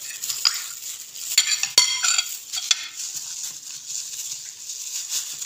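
Crinkling, crackling rustle of a thin plastic glove on a hand rubbing spice paste into raw chicken legs, with a burst of sharp clicks and crackles around two seconds in.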